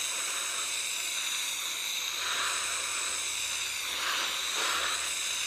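Gas torch flame hissing steadily while it heats a brass heater core for soldering, with a few brief louder swells.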